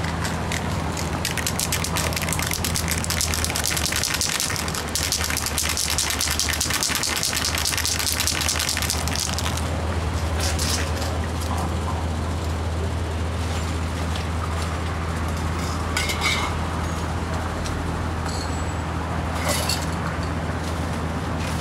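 City street background noise: a steady low hum like an idling engine, with a hiss in the first several seconds and a few short knocks in the second half.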